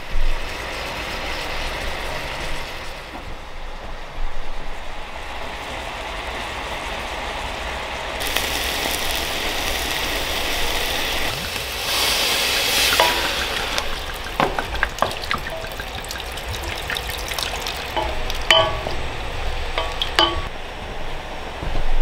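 Beef cubes sizzling as they brown in a pot on a wood cookstove and are stirred, the sizzle growing louder about a third of the way in. Through the second half, light clinks and knocks of kitchen utensils and dishes.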